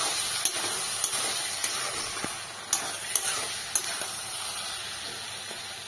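Gourd sabzi sizzling in a steel kadai while a spatula stirs it, with a few sharp taps and scrapes of the spatula on the pan. The sizzle slowly eases off.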